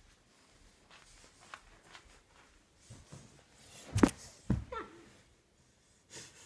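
Phone being handled and moved about, with rustling, a sharp knock about four seconds in and a second knock half a second later, followed by a brief wavering squeak.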